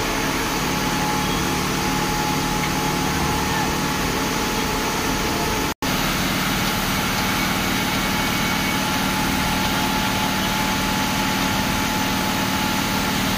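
Mobile crane's diesel engine running steadily, with a constant hum and a thin high whine over it. The sound drops out for an instant about six seconds in, then carries on unchanged.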